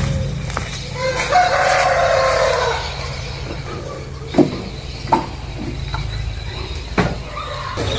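A rooster crowing once, one long call of nearly two seconds. Later come a few sharp separate knocks, over a steady low rumble.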